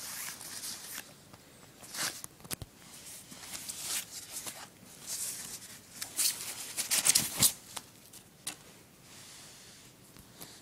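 Unboxing packaging being handled: rustling and crinkling with scattered clicks and knocks, busiest and loudest about seven seconds in.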